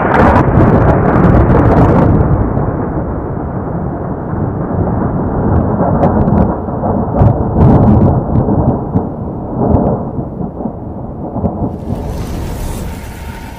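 Thunder-like rumbling sound effect, loud from the start with sharp cracks in the first two seconds, then slowly easing off. A high hiss and a steady high tone come in near the end.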